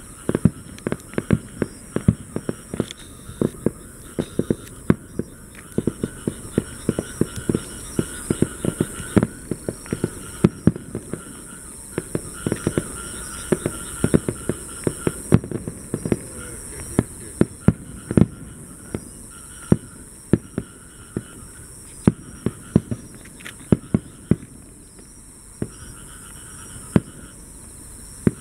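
Fireworks display: aerial shells bursting in quick succession, an irregular string of sharp bangs, often several a second.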